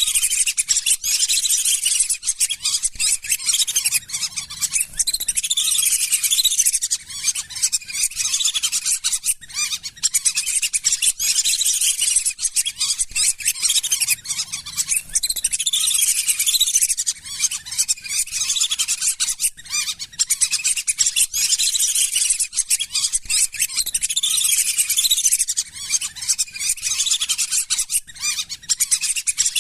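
Flock of lesser whistling ducks (belibis sawah) calling without pause: many high, whistled notes overlapping in a dense chatter.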